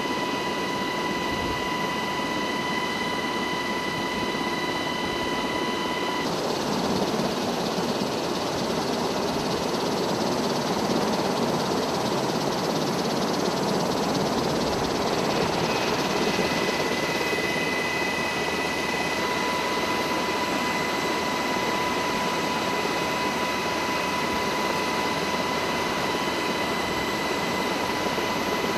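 UH-60 Black Hawk helicopter running: a steady loud rush of rotor and twin-turbine noise with a high whine over it. The whine drops out about six seconds in and comes back around the middle.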